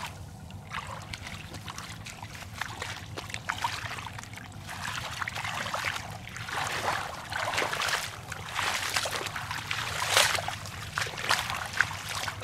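Bare feet splashing through shallow standing water in wet grass, one uneven step after another, roughly every half second to a second.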